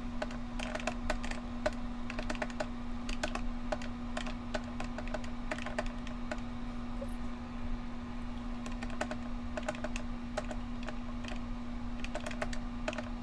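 Fingers tapping keys quickly and irregularly as figures are entered to total columns of numbers. A steady low hum runs underneath.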